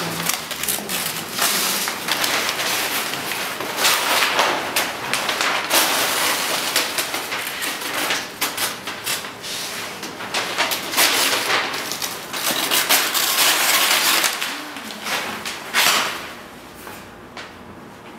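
Large printed paper sheets being handled and crumpled, a dense crinkling and rustling full of sharp crackles, which stops near the end.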